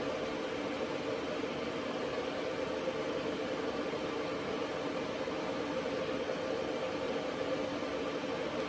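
TIG welding arc from a Jess ProTIG 220 AC/DC welder running continuously while a bead is laid along an exhaust pipe seam: a steady hiss with a constant hum.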